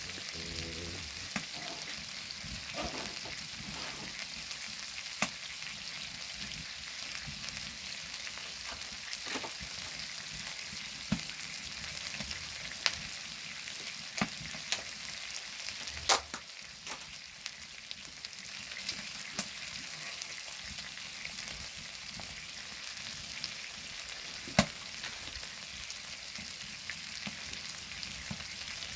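Pork sizzling on a flat stone slab heated on a wood-burning stove, a steady hiss with sharp pops now and then.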